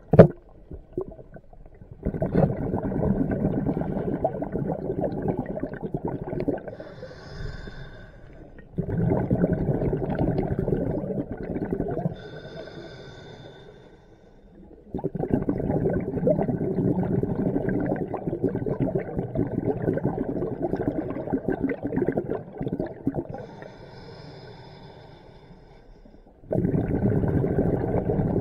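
Scuba diver breathing through a regulator underwater: long bursts of bubbling exhalation, each followed by a short, hissing inhale, in a slow rhythm of four breaths. A sharp click sounds right at the start.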